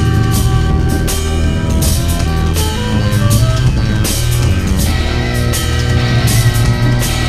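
DJ set playing drum-led music from vinyl records on two turntables through a DJ mixer, with a steady beat, heavy bass and a melodic line.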